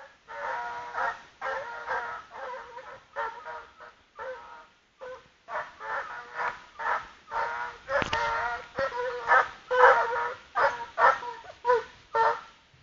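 Russian piebald hound baying in a long string of short, pitched calls, roughly two a second.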